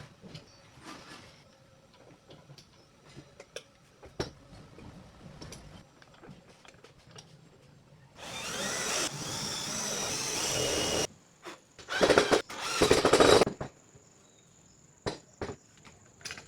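Scattered light clicks and knocks, then a power drill runs for about three seconds and twice more in short bursts.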